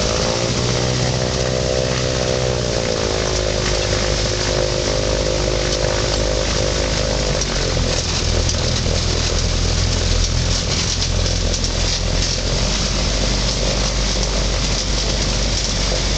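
Thruster T600N microlight's engine and propeller running, heard from the open cockpit. Its note rises slightly and then drops in the first few seconds, and about eight seconds in it gives way to a denser, steady noise with more wind as the aircraft speeds across the grass.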